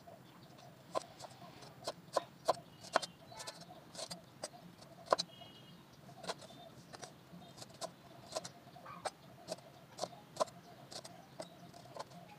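A crinkle-cut knife chopping fresh ginger on a wooden cutting board: irregular sharp knocks of the blade through the ginger onto the board, about one to two a second.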